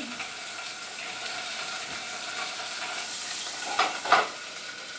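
Pork frying in a pan on the stove: a steady sizzle, with two short clatters of the pan or utensil being handled about four seconds in.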